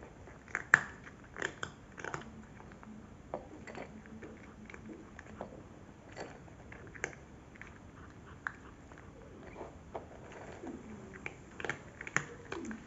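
Cat crunching dry kibble: irregular sharp crunches, bunched in the first two seconds and again near the end, sparser in between.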